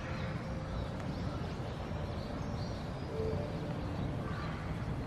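Outdoor park ambience: a steady low rumble, with faint short bird chirps scattered through it.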